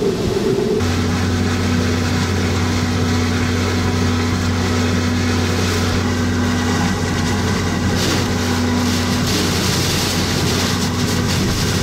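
Hurricane-force wind and heavy, wind-driven rain lashing a vehicle, heard from inside, over the vehicle's steady low hum. The rain and wind noise swells about eight seconds in.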